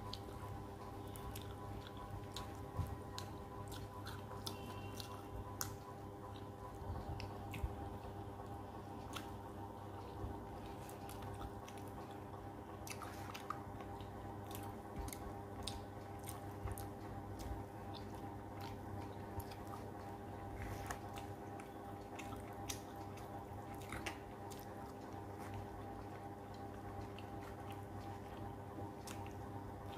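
Close-up eating sounds of a person chewing rice and fish curry eaten by hand: soft wet squishing and frequent small clicks of the mouth and fingers. A steady low hum runs underneath.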